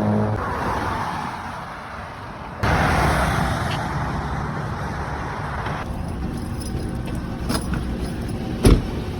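Motor vehicle noise: a steady car engine and road hum that suddenly grows louder about two and a half seconds in, with a few light clicks and one sharp knock near the end.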